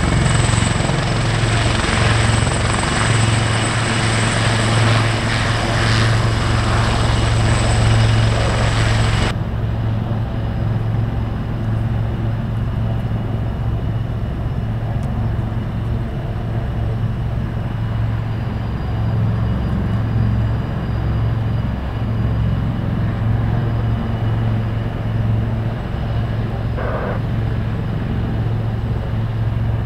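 Helicopter running, with a steady, pulsing low rotor drone. Over it is a high whine and hiss that cuts off abruptly about nine seconds in, leaving the low drone.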